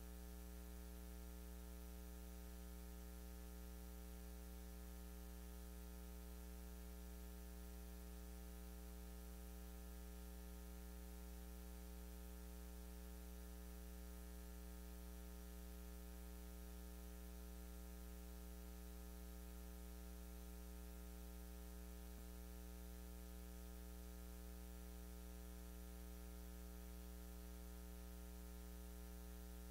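Steady electrical mains hum with a faint hiss, unchanging throughout, with no other sound above it.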